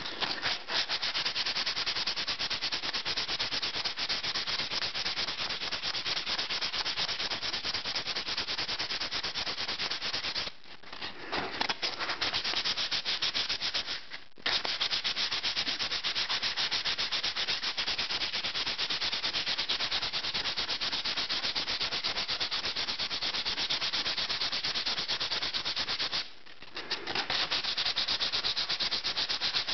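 220-grit wet/dry sandpaper rubbed rapidly back and forth on a rusty steel hatchet head lubricated with WD-40, taking off rust. The strokes are quick and even, with two brief pauses, the first in the middle and the second near the end.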